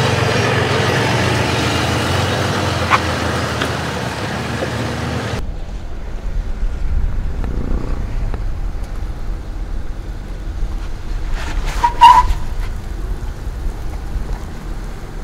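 Jeep Grand Cherokee's engine running at low revs while it crawls up a steep slickrock slope, heard up close. After about five seconds the sound changes abruptly to a quieter low rumble, and a brief sharp squeak comes near the end.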